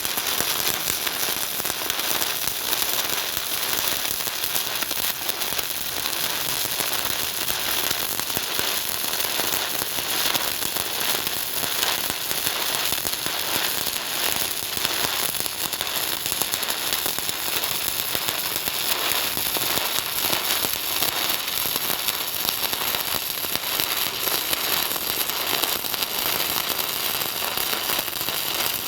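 Stick welding arc of an E8010 cellulose electrode crackling steadily while laying a fill pass on steel pipe.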